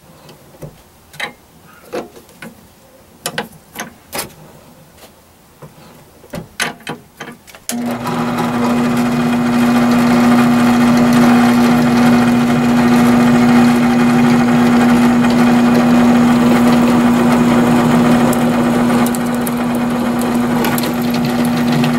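A few sharp clicks and knocks as a metal workpiece is handled and set in a drill press vise. About eight seconds in, a benchtop drill press motor switches on suddenly and runs with a loud, steady hum.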